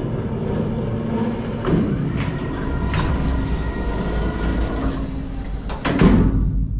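Steady low rumbling and metal rattling from moving metal equipment, with a louder clank about six seconds in.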